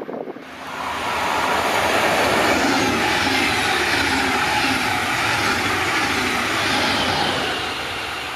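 A train passing at high speed: a loud rush of wheel and air noise that swells sharply about a second in, holds, and eases near the end.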